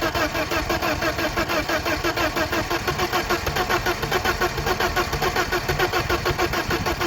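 BMW E34's starter motor cranking the engine nonstop with a steady, rapid pulsing beat as each cylinder comes up on compression, the engine never catching: a crank-but-no-start condition.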